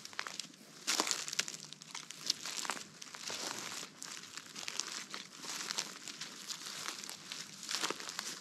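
Footsteps on dry leaf litter: an uneven run of crackling rustles.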